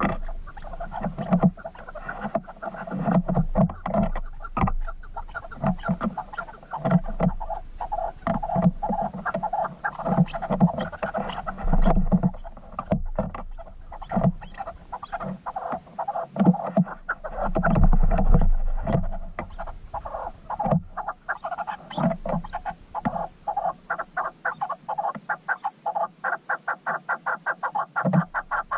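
Chukar partridge calling: a long run of rapid, repeated clucking notes that settle into a fast, even series near the end.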